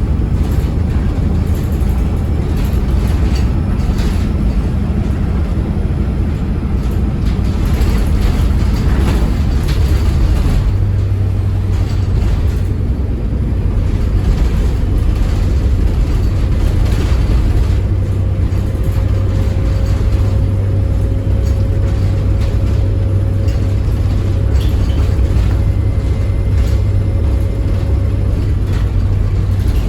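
Diesel engine of a single-deck service bus running under way, its steady drone stepping up in pitch about ten seconds in. A faint steady whistle, typical of the turbocharger, comes in over the second half.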